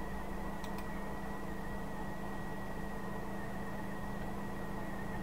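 Steady electrical hum and hiss from the recording setup, with a thin high tone held throughout. A faint double click comes about a second in.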